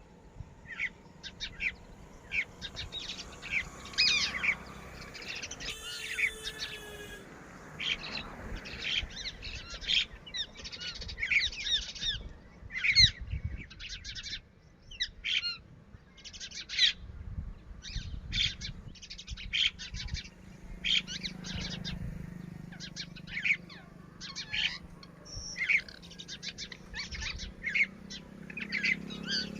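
Red-wattled lapwing calling: short, sharp, high calls repeated over and over, about one or two a second.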